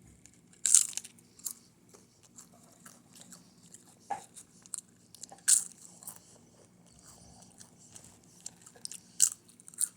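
A person crunching and chewing a crunchy snack: a string of short, sharp crunches with quieter chewing between them, the loudest crunches about a second in, midway and near the end.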